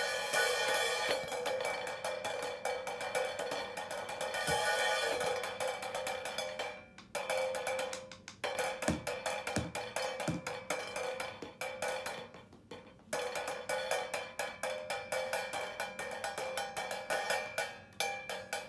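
A cymbal lying flat on the floor, struck fast and continuously with two drumsticks: a dense stream of strikes over a sustained metallic ring. The ring is choked off briefly a few times and cuts off suddenly at the end.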